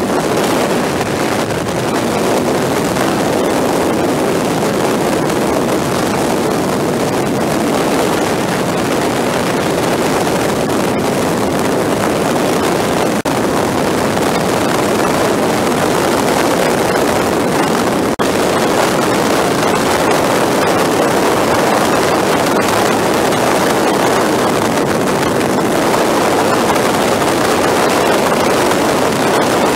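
Motorcycle riding at speed: steady wind rush over the microphone mixed with engine and road noise, sped up to four times normal speed. The sound dips for an instant twice, about 13 and 18 seconds in.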